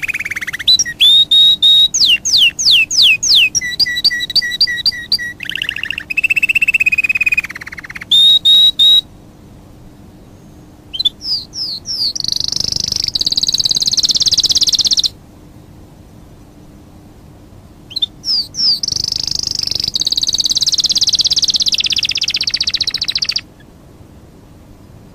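Songbird singing: clear whistles, quick falling sweeps and fast trills. The song comes in three phrases, the last two ending in a long buzzy trill, and each phrase cuts off abruptly.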